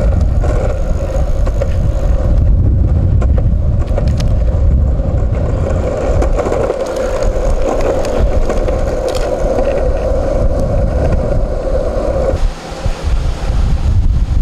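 Skateboard wheels rolling over rough asphalt: a steady loud rumble with a hum running through it. The hum drops out about twelve seconds in.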